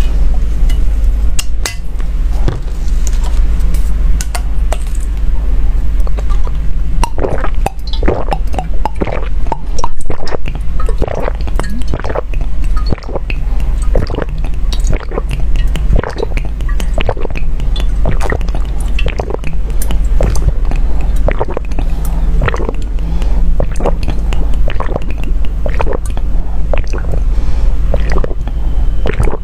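Drinking through a long plastic straw from a glass vessel: irregular sucking sips and gulps, getting busier about a quarter of the way in, over a steady low hum.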